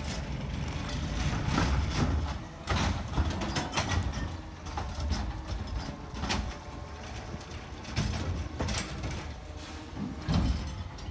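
McNeilus ZR rear-loader garbage truck on a CCC LET2 chassis running at the curb, its engine a steady low rumble, with repeated knocks and clanks as waste carts are tipped into the rear hopper.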